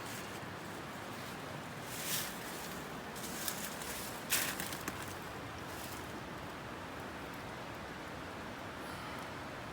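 Small wood fire burning in a Firebox camp stove: a steady hiss with a few sharp crackles, the loudest about 2 and 4.5 seconds in.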